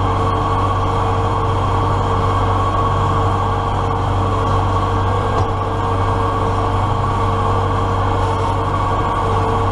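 Case IH MX100C tractor's diesel engine running steadily under load as it pulls the plastic mulch layer, with a constant low hum and a steady whine.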